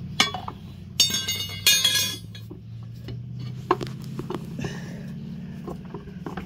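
Steel tire pry bars clanking against a mini tire changer and wheel rim while a mower tire's bead is worked over the rim: two sharp, ringing metal clanks about a second and a second and a half in, then a few lighter clicks.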